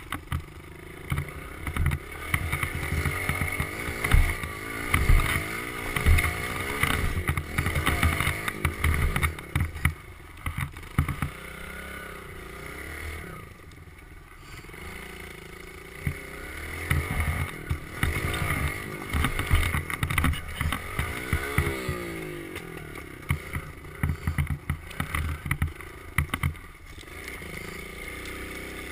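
Kawasaki KLX110 dirt bike's small single-cylinder four-stroke engine revving up and falling back again and again as it is ridden over bumps, with sharp knocks and rattles now and then. About halfway through the engine drops to a quieter, steadier run for a few seconds before revving hard again.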